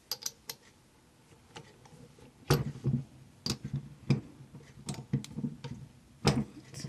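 Irregular metallic clicks and knocks of a socket wrench set being handled: a socket, an extension and a ratchet being fitted together, with a few heavier clunks in the middle and near the end.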